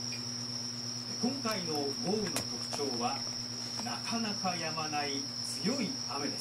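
A steady high-pitched whine with a low hum underneath, unbroken throughout. From about a second in, a faint voice makes several short rising-and-falling sounds.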